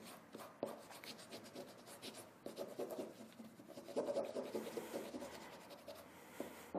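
Photocopy paper being rubbed with a small rounded tool on cotton-linen canvas: quick, faint scratchy strokes as the laser-toner image is pressed onto the fabric, a little louder about four seconds in.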